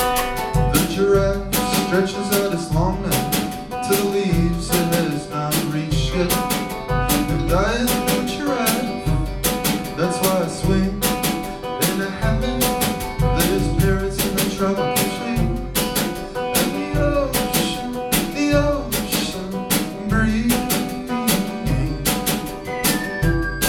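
Music: an instrumental passage of a band playing, with plucked guitar, a steady drum beat and bass.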